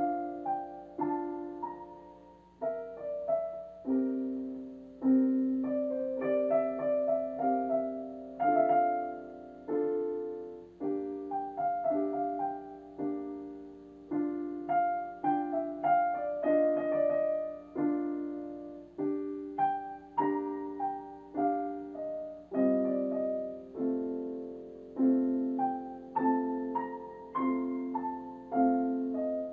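Electronic keyboard played with a piano voice: a slow piece of chords with a melody above, the notes struck at a steady pace and dying away after each stroke.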